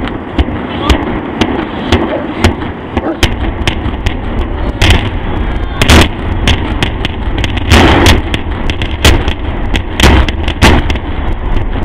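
Distant implosion of a power plant: a rapid, irregular string of sharp demolition-charge cracks over a low rumble of the structure collapsing, which grows about three seconds in, with heavier booms near the middle and again near the end.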